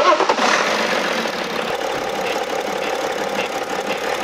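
BMW X6 3.0d's inline-six turbodiesel starting up, then settling into a steady idle. From about two seconds in, faint high squeaks come about once a second: the 'duck' noise that the mechanic traces to a pinched rubber diaphragm in a failing EGR valve.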